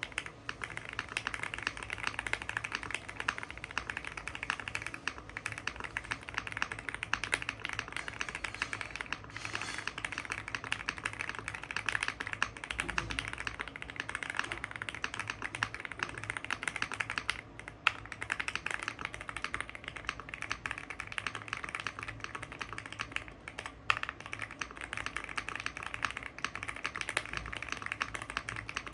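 Fast, steady typing on a custom 65% mechanical keyboard: lubed Gateron Box Ink Black linear switches in an FR4 plate on a hotswap PCB, with all foams and tape mod, under PBT Cherry-profile keycaps. There are a couple of brief lulls in the typing.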